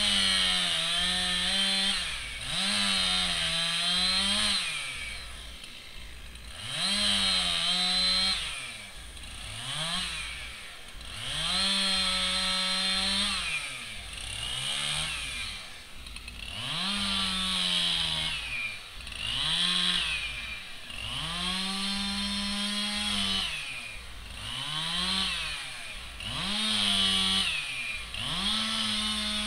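Big Husqvarna chainsaw carving an upright log: the engine is revved to full throttle in about a dozen bursts of a second or two, dropping back toward idle between cuts.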